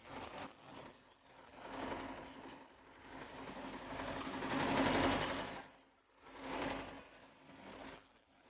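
Small vintage tractor's engine chugging at a rapid, even beat. It swells to its loudest about five seconds in, drops away, then swells again briefly.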